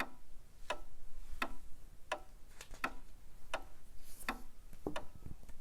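Clock-ticking sound effect: a steady tick about every three-quarters of a second.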